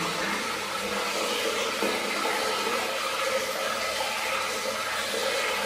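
Hot spring water running steadily into a bath, an even rushing noise with no breaks.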